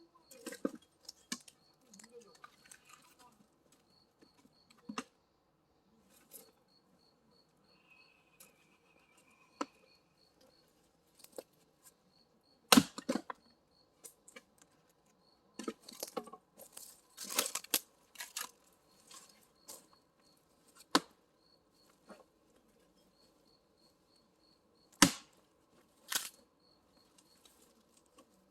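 Firewood being split with an axe: a few sharp cracking blows at irregular intervals, the loudest about 13 and 25 seconds in, with lighter knocks of wood being handled between them. An insect chirps faintly in short pulsing runs.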